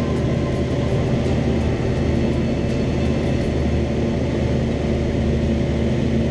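Cessna 172's single propeller engine running steadily at takeoff power as the plane lifts off and climbs out.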